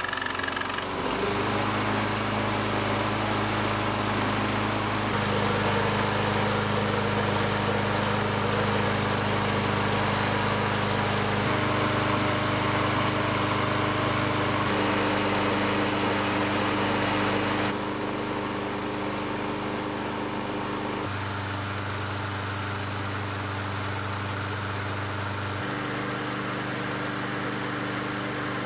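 Push mower's small single-cylinder engine running on charcoal lighter fluid in place of gasoline. It catches about a second in and then runs steadily.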